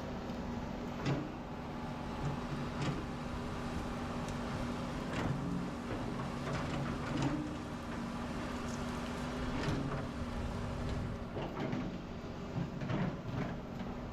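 Excavator's diesel engine running steadily while digging, with sharp knocks and clanks from the bucket and arm every couple of seconds.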